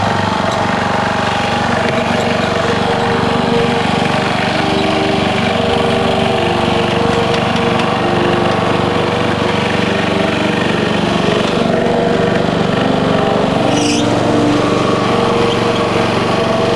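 Husqvarna riding lawn mower's engine running steadily while the mower drives along.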